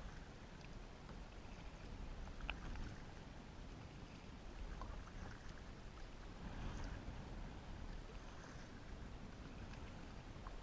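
Kayak being paddled over calm water: faint splashing and dripping from the paddle strokes every few seconds over a steady low rumble, with a small click about two and a half seconds in.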